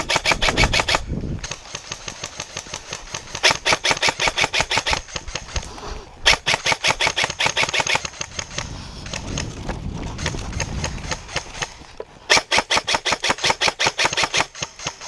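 Airsoft guns firing full-auto, a fast rattle of BB shots in about four bursts of one to two seconds each, with scattered shots between them.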